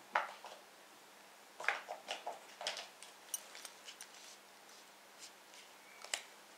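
Scattered light clicks, taps and rustles of small plastic make-up items being handled, as lipstick tubes are picked up, sorted and set down; a cluster of them comes about two seconds in and a last sharp click near the end.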